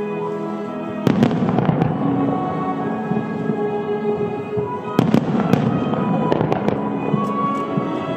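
Starmine fireworks bursting, with sharp reports about a second in and again about five seconds in, followed by scattered crackling from thousand-ring (senrin) shells, over music played alongside the show.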